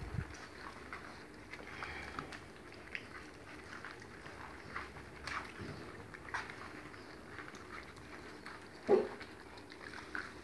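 Kelpie puppies eating soft mince and oats together from a plastic tray: scattered small wet clicks of licking and chewing, with one louder short sound about nine seconds in.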